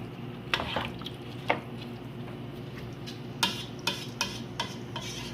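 A spoon stirring washed uncooked rice into cooked chicken and tomato sauce in a pot, with scattered scrapes and knocks against the pot over a steady low sizzle.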